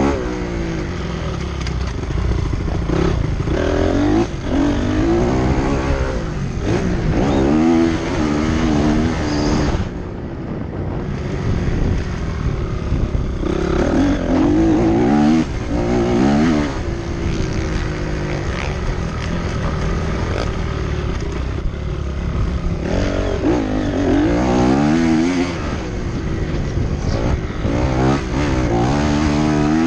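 Motocross motorcycle engines racing, their note rising and falling over and over as the throttle is opened and shut, with a brief dip about ten seconds in.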